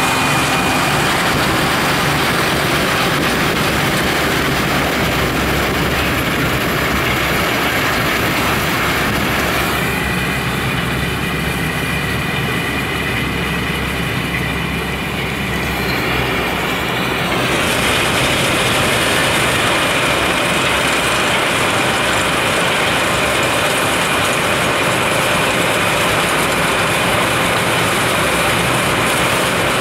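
RhB Xrotmt 95403 rotary railway snow blower running steadily as it clears snow from the track, heard from inside a car on the road beside it. For several seconds in the middle the sound turns duller, with less hiss.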